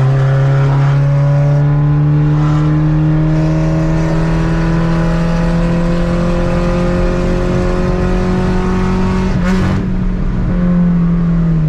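Naturally aspirated Vectra 2.2 8-valve four-cylinder swapped into a Chevrolet Corsa, pulling under acceleration with its pitch rising slowly for about nine seconds. A brief rushing noise comes about nine and a half seconds in, and the engine's pitch falls near the end.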